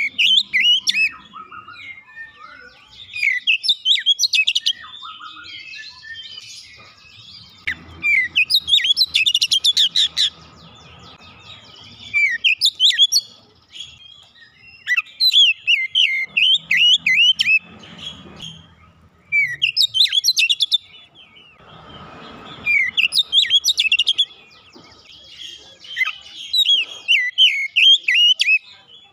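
Oriental magpie-robin singing in loud bouts of rapid, varied whistled and chattering notes, each bout lasting a second or two, repeated every few seconds with short pauses between.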